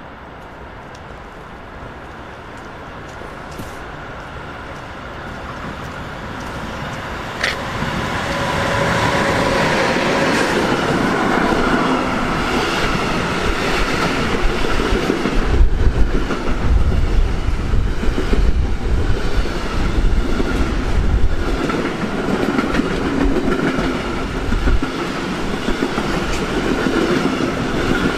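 Freight train behind an electric locomotive approaching and passing close by. It grows steadily louder over the first eight seconds or so, then a long rake of stake flat wagons rolls past with a steady rumble of wheels on rail and clickety-clack at the rail joints.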